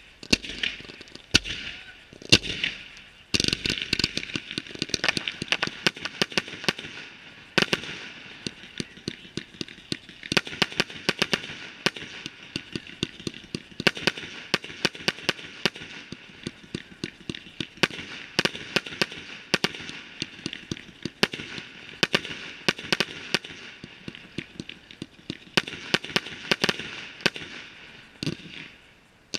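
Fireworks display: a dense barrage of sharp bangs and crackles, many per second, with louder single reports standing out, easing off briefly near the end.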